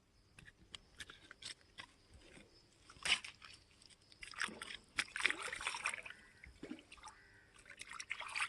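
Water splashing and sloshing in irregular bursts, loudest about three seconds in and again from about four and a half to six seconds.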